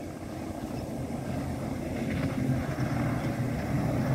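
Speedboat engine running at speed, a steady drone that grows louder as the boat approaches, with the hiss of its wake on the water.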